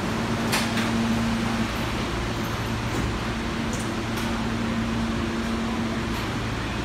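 A Kawasaki R160B subway car standing at the platform, its air-conditioning and on-board equipment giving a steady hum with low tones. A few faint clicks sound over it.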